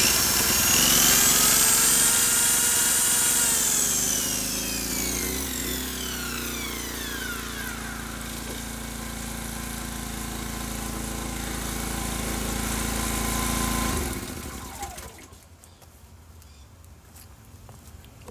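Inverter generator engine running under load. An electric machine plugged into it spins up with a rising whine, is switched off and winds down with a falling whine. About fourteen seconds in, the generator's drone drops away sharply and much quieter sound follows.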